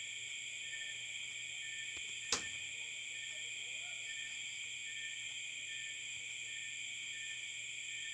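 Steady high-pitched insect chorus, with a faint short pip repeating at even intervals. A single sharp click a little over two seconds in.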